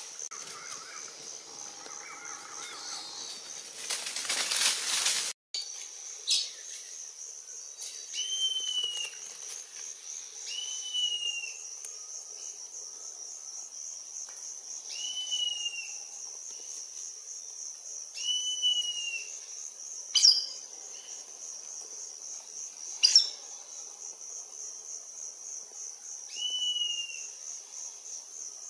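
A steady, high, pulsing trill of insects. Over it, a bird calls in short arched falling notes, usually two at a time, every few seconds. A burst of rustling noise comes about four seconds in, and two sharp snaps come later.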